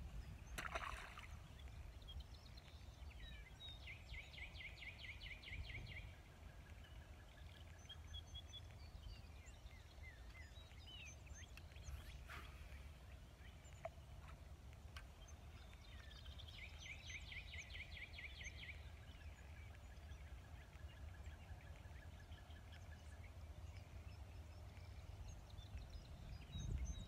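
Quiet pondside ambience: a low wind rumble on the microphone, with birds chirping now and then and a rapid trill heard twice, about four seconds in and again about seventeen seconds in, each lasting roughly two seconds.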